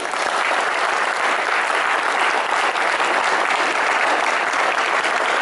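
Audience applauding, many people clapping at a steady level.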